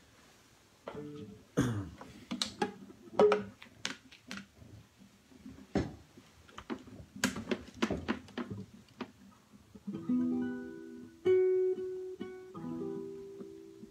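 An acoustic guitar being picked up and handled, with scattered knocks and bumps against its body, then about ten seconds in three chords strummed one after another and left ringing.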